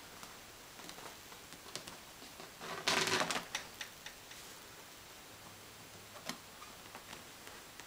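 Kittens' claws scratching and ticking on the fabric seat of an office chair as they play, with a louder burst of scuffling about three seconds in when they tussle.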